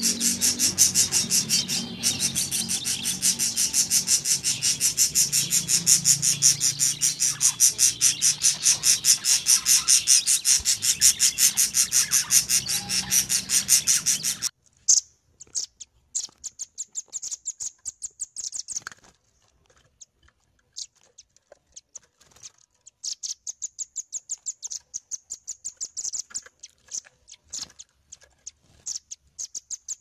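Songbird chirping played as a training recording for contest birds: a dense, even run of rapid high-pitched chirps that cuts off abruptly about halfway, followed by a different recording of shorter bursts of high chirps with pauses between them.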